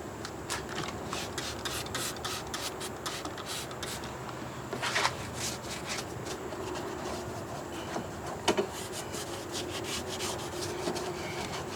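Irregular hand rubbing and scraping strokes on a truck door handle, cleaning off residue left by a removed chrome cover, with a couple of louder strokes in the middle.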